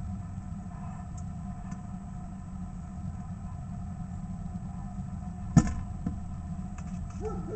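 Steady low rumble throughout, with a sharp knock a little past halfway and a softer one half a second later, as a northern cardinal pecks at sunflower seeds on the feeder right at the microphone.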